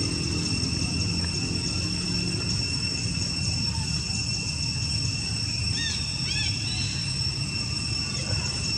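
Outdoor ambience: a steady high-pitched insect drone over a low rumble, with two or three short rising-and-falling chirps about six seconds in.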